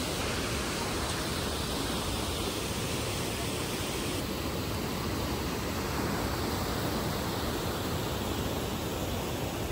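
Whitewater of the Düden River rushing steadily through its rocky channel just below the waterfall.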